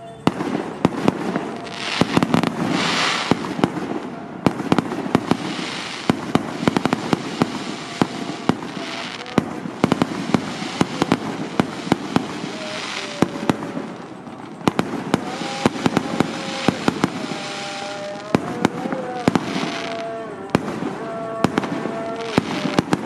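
Fireworks and firecrackers going off in a dense, rapid barrage of sharp bangs and crackles, with a brief drop in the racket about fourteen seconds in. Underneath, a voice holds long, stepping chanted notes.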